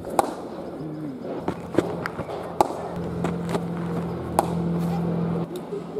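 Cricket net practice: sharp knocks of a cricket bat striking the ball and the ball hitting the artificial pitch, several within a few seconds. A steady low hum runs from about three seconds in to past five.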